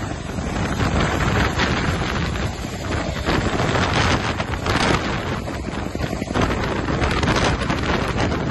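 Heavy wind buffeting on the microphone from the rotor downwash of a CH-47 Chinook tandem-rotor helicopter hovering close by, with the helicopter's rotor noise mixed in.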